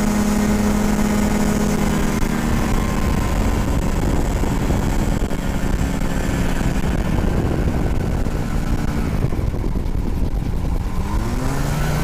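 GyroBee gyroplane engine running under power during a takeoff roll into a strong headwind, with wind noise underneath. About nine seconds in the engine note eases off, and near the end it rises again as power comes back on.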